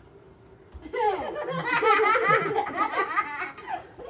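Several young children laughing together, starting about a second in and carrying on until near the end.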